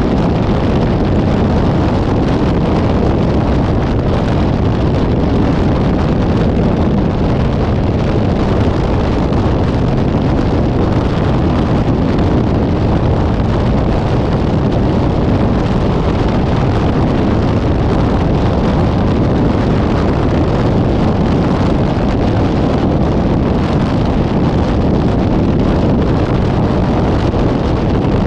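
Steady rushing wind on the microphone over the rumble of a moving vehicle, unbroken throughout with no horn or other distinct event.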